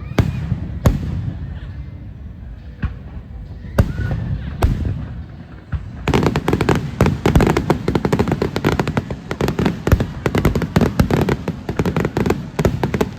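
Fireworks going off: a few single sharp bangs spaced a second or more apart, then about six seconds in a dense, rapid crackling of many reports that keeps going.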